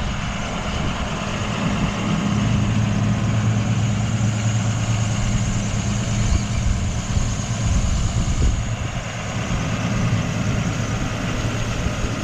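Tractor engine running steadily while pulling an umbilical slurry spreader, with a broad rushing noise behind it. The low engine hum grows stronger about two seconds in and eases off again after about eight seconds.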